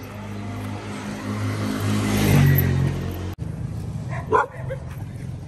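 A motor vehicle drives past close by, its engine growing louder to a peak about two seconds in, then cut off suddenly. Near the end a dog barks.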